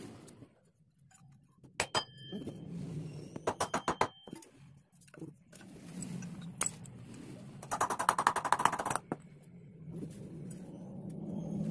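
Metal objects clinking and jingling, with two short bursts of rapid clicking, about four seconds in and again around eight seconds, over a low steady hum.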